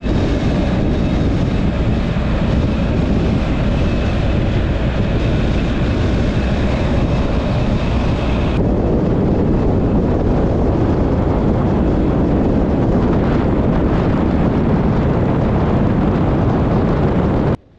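Motorcycle riding at speed: a steady, loud rush of wind on the microphone over engine and road noise. About halfway through the sound changes abruptly and loses some of its hiss, and it cuts off sharply just before the end.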